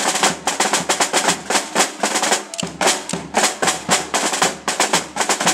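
A corps of field snare drums playing a fast, dense march rhythm together, with a larger drum thudding underneath; the beating breaks off at the very end.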